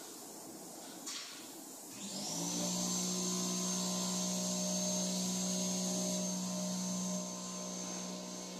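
Electric motor of Cowen honey-extraction line machinery switching on about two seconds in. It comes up to speed within half a second, then runs steadily with a low hum and a high whine. A single knock comes just before it.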